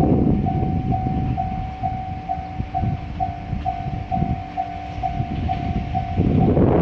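Level-crossing warning bell ringing at a little over two strokes a second over the low rumble of a JR Hokkaido 789 series limited express train running past on the rails. The bell stops about six seconds in, and wind buffeting the microphone then takes over.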